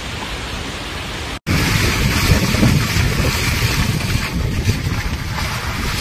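Steady rushing noise of floodwater. About a second and a half in it cuts out for a moment and comes back louder, with wind buffeting the microphone.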